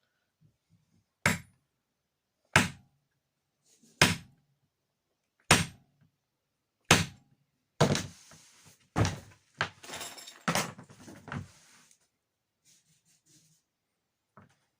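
Five sharp knocks about a second and a half apart, then a quicker run of knocks with rattling clatter between them, and one faint knock near the end.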